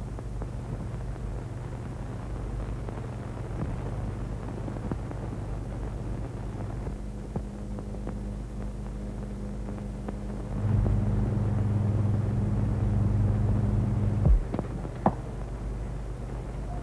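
Steady low hum and hiss of an old film soundtrack. About halfway through, a low steady tone joins the hum and swells louder, then cuts off abruptly with a thump, followed by a few faint clicks.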